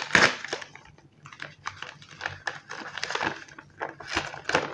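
Padded paper mailing envelope rustling and crinkling under gloved hands: an irregular run of soft scrapes and light taps, loudest just after the start.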